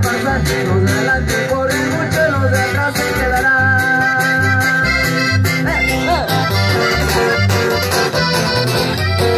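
Live band playing: an accordion carries the melody over a guitar and bass line with a steady beat.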